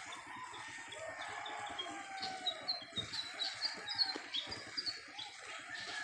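Rooster crowing, with a run of quick, high bird chirps in the middle.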